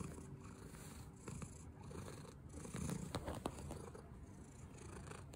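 White domestic cat purring close to the microphone: a steady low pulsing purr with a few soft clicks. The purr goes with the cat settling into relaxation.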